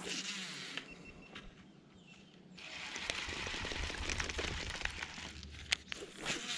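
Rustling and handling noise from an angler's sleeves and hands working a baitcasting rod and reel, with a few sharp clicks near the end.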